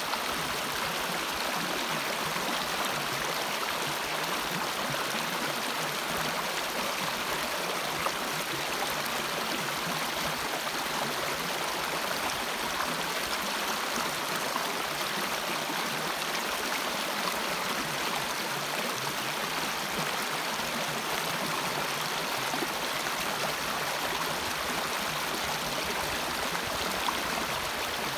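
Shallow rocky stream running over stones in small riffles, a steady rushing and babbling of water.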